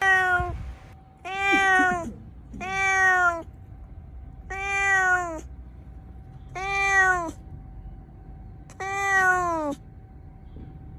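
A cat meowing repeatedly: six drawn-out meows, each under a second long and falling in pitch at the end, about one every one and a half to two seconds.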